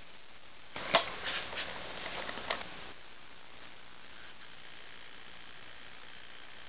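VCR mechanism clicking and whirring for about two seconds, with a sharp click at the start, as play engages on a tape. Then a steady hiss with a faint high whine.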